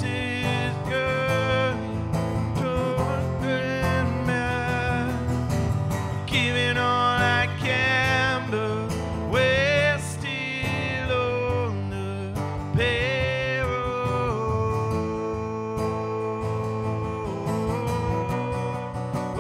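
A man singing while playing an acoustic guitar, live. His voice wavers through short phrases, then holds one long note over the guitar for a few seconds toward the end.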